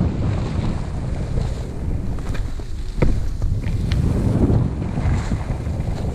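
Wind buffeting the microphone of a camera moving down a ski slope, over the hiss and scrape of skis on packed snow, with a few sharp clicks near the middle.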